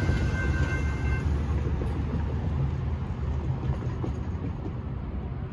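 Railroad crossing warning bell ringing, then cutting off about a second in as the crossing gates finish rising. Under it a low rumble of traffic and the departing freight train fades away.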